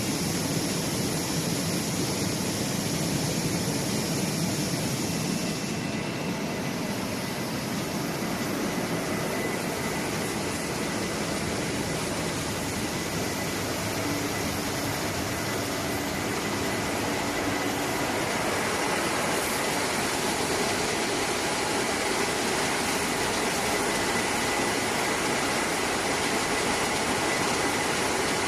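Industrial fruit and vegetable washing line running with a steady machine-and-water noise, with a faint thin whine held throughout.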